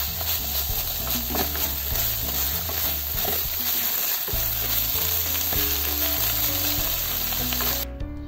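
Thick fried tofu, long green onion and meat miso sizzling in a frying pan as they are stirred and turned with a wooden spatula. The sizzle cuts off suddenly near the end.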